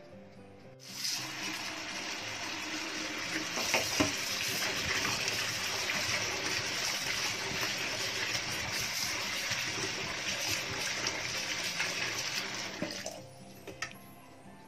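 Tap water running into a stainless steel pot of cut potato sticks as a hand swishes them about, rinsing them until the water runs clear. The water starts about a second in and stops near the end.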